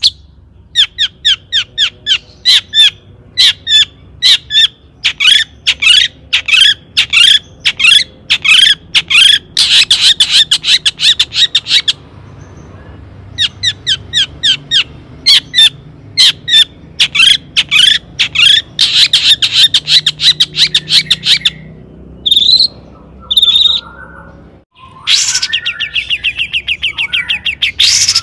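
Long-tailed shrike (cendet) singing: rapid strings of sharp, high, repeated notes, with a short break about twelve seconds in and a faster rattling series near the end.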